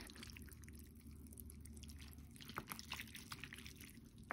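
Wooden chopsticks moving through saucy braised chicken and glass noodles in a plastic takeout tray. Faint sticky, wet food sounds with light clicks, more frequent in the second half.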